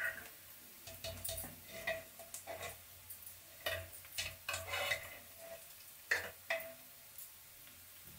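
Irregular light clinks and taps of steel kitchen utensils, a spoon knocking and scraping in a steel pot as boiled potatoes are lifted out into a bowl.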